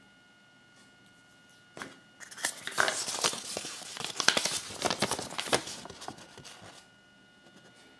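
Folded paper leaflet being unfolded and handled: a crinkling rustle of quick crackles and clicks that starts about two seconds in and lasts about five seconds.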